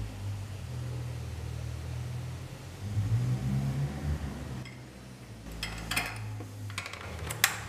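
Metal bolt and washer clicking and clinking against a metal strap bracket as they are fitted by hand, a few sharp clicks in the second half with the sharpest near the end, over a steady low hum.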